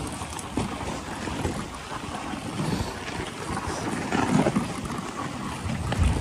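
Dog sled running over a packed snow trail: a steady hiss and scrape from the runners with wind on the microphone, broken by irregular bumps and knocks as the sled jolts.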